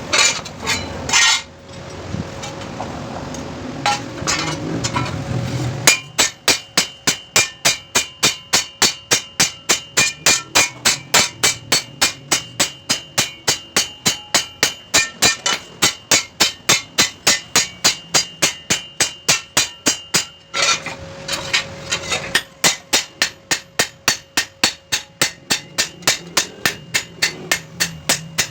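Hammer blows on a steel chaff cutter blade being sharpened by hammering its edge. After a few scattered knocks, the blows come steady and rhythmic at about three or four a second, each with a metallic ring. They pause briefly past the two-thirds mark, then go on.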